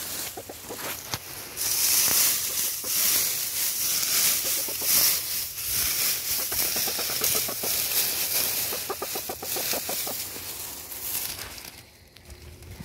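Dry oak leaves rustling and crackling as a hen digs and scratches in a deep leaf pile, with the hen clucking in several short runs of rapid low clucks. The rustling dies away near the end.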